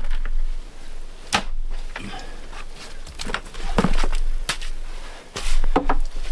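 A handful of separate sharp knocks and thuds, about five spread over several seconds, over a faint low hum.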